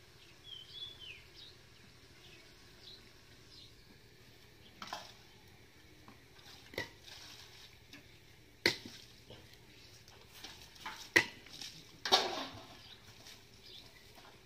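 Metal utensils clanking against each other as they are washed by hand: a handful of separate sharp clinks a second or two apart in the second half, one dragged into a short scrape. A bird chirps briefly near the start.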